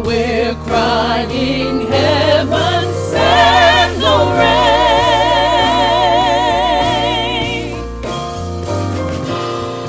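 Gospel vocal ensemble singing over drums, keyboard and electric bass. The voices move through runs, then hold a long chord with wide vibrato from about four seconds in, and drop out near eight seconds while the band plays on.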